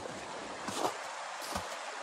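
Footsteps in snow, a couple of steps about a second in and again near the end, as a person walks up past the camera, over a steady rushing background noise.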